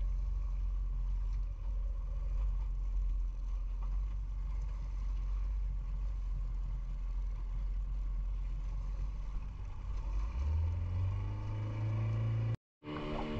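A small boat's engine running under way, a steady low rumble mixed with wind and water noise. About ten seconds in, a steadier, higher engine hum joins it, and the sound cuts out for a moment near the end.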